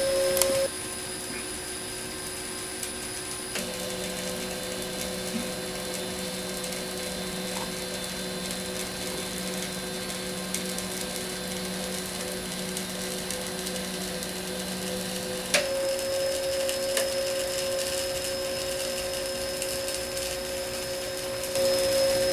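Stepper motors of a CNC hot-wire foam cutter whining steadily as they drive the X and Y axes to move the wire through foam. The pitch steps abruptly to a new steady whine about four seconds in and again about fifteen seconds in as the moves change, and the sound gets louder near the end.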